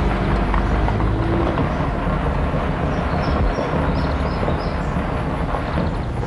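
Steady rumble of a vehicle on the move, engine and road noise, with a few faint high chirps in the middle.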